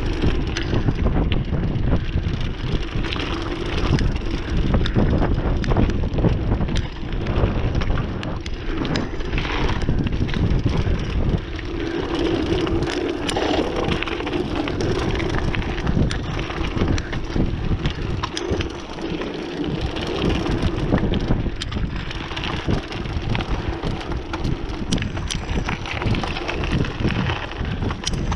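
Mountain bike riding fast down a loose dirt-and-grit trail: the tyres crunch and roll over the surface while the bike rattles and knocks over bumps, under steady wind buffeting the microphone.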